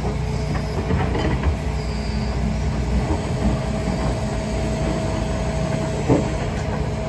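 John Deere 245 excavator's diesel engine running under load with a steady whine as the bucket digs into the soil of the hole. A few short knocks come about a second in, and a louder clunk about six seconds in.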